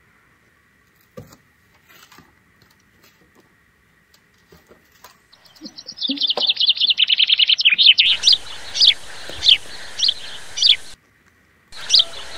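Birds chirping: a fast high trill about halfway in, then sharp downward chirps about twice a second over a steady background hiss, which drops out briefly near the end. Before the birds, only a few faint clicks.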